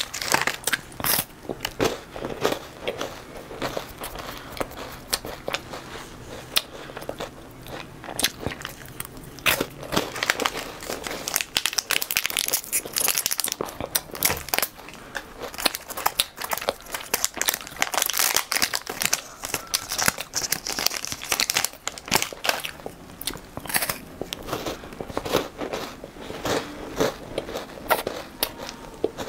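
Crunching and chewing of a chocolate-coated wafer bar close to a clip-on microphone, with the crinkle of a plastic snack-bar wrapper being opened partway through.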